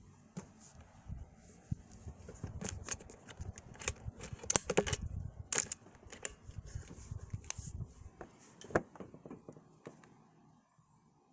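Irregular rustling and clicking handling noise, with a dense cluster of sharper clicks in the middle that thins out toward the end.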